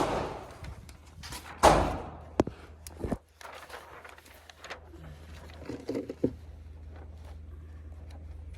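Muffled gunshots at an indoor shooting range: a sharp crack at the very start and a louder shot with a ringing tail a little under two seconds in, followed by lighter knocks and clicks. A steady low hum runs through the second half.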